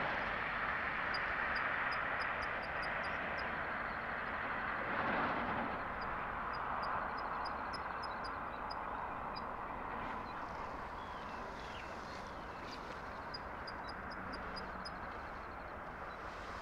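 Steady hiss of distant traffic, slowly easing off, with several runs of faint, quick, high-pitched ticks from a small creature.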